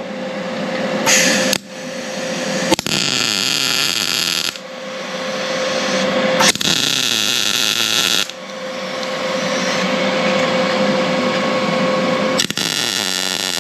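Gas-shielded MIG (wire-feed) welder laying tack welds on the steel bar: four crackling arc bursts, from half a second to nearly two seconds long, with a steady hum between them.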